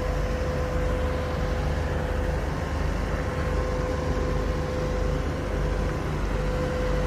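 Steady low drone of idling heavy diesel equipment, a parked semi tractor and trailer refrigeration units, with a constant steady hum tone over it.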